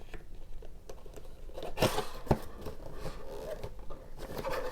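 Box packaging being handled, rustling and crinkling, with two sharp knocks a little under two seconds in.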